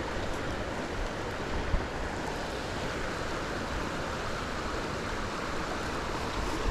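Steady rush of a small mountain stream running over rocks.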